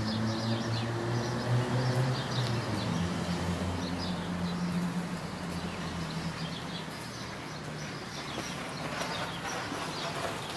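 Small birds chirping in the background, over the steady low hum of a motor vehicle's engine that shifts pitch about three seconds in and fades out after about seven seconds.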